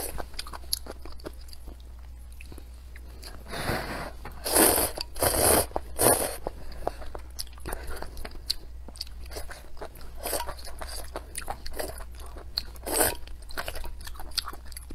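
Close-up mouth sounds of eating spicy-sour chicken offal and noodles: wet chewing and crunching with many small clicks, and a few louder bursts about four to six seconds in and again near thirteen seconds.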